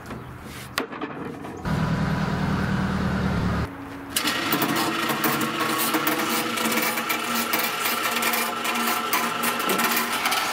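A few metal knocks, then an electric chain hoist running as it lifts a steel basket loaded with cast lead pieces out of a pickup bed. The hum changes about four seconds in to a noisier run with chain rattle.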